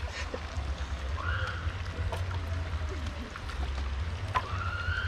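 Steady rush of river water, with a low rumble of wind on the microphone.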